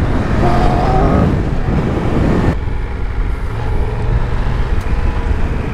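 Triumph Tiger 1200 Rally's 1160 cc three-cylinder engine running under way on a dirt trail. About halfway through, the sound turns suddenly quieter and duller.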